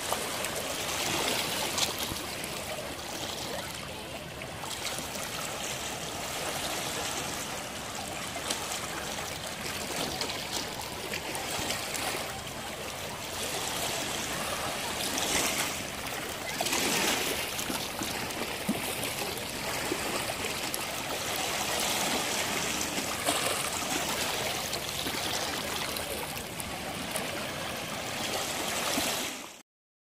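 Shallow sea water lapping and trickling over flat shoreline rocks, a steady wash with a few louder surges.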